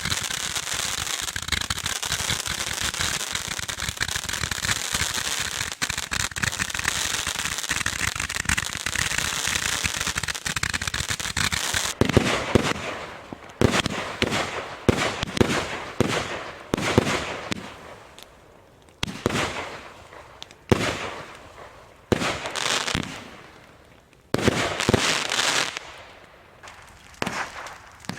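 Fireworks going off: about twelve seconds of dense, continuous crackling, then a run of separate bangs roughly every second, each fading away before the next.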